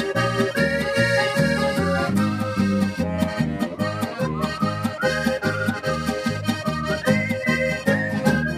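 Diatonic button accordion playing a lively, ornamented melody over a steady alternating bass-and-chord accompaniment, with an electric guitar strumming along. It is an instrumental passage of a polka-style folk-pop song.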